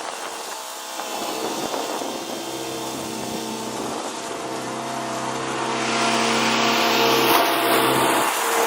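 Zero-turn ride-on mower's engine running steadily, getting louder with more rushing noise about six seconds in.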